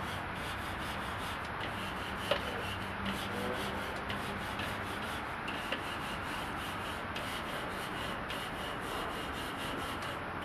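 Grill cleaner scrubbing the hot grate of a charcoal grill, a steady back-and-forth scraping.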